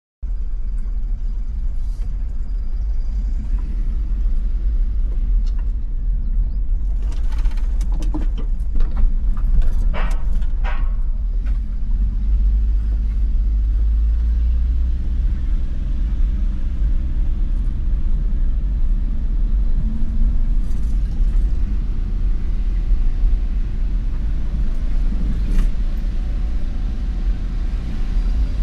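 Steady low rumble of a moving car, with a few clicks and rustles about seven to eleven seconds in.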